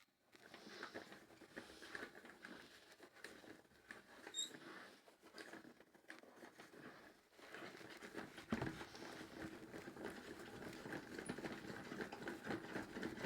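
Washing machine drum turning, a steady hum with a continuous fine rattle and clatter, growing louder about halfway through with a single knock soon after. The title blames this on bad drum bearings.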